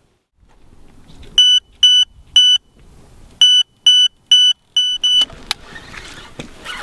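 Electronic bite alarm on a pike rod beeping as line is taken: three beeps, a short pause, then five quicker beeps. This is a pike run, a fish picking up the popped-up dead bait. Near the end there is rustling as the rod is picked up.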